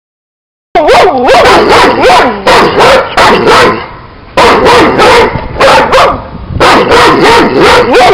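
Dogs barking loudly in rapid runs of about three barks a second, starting just under a second in, with two short breaks.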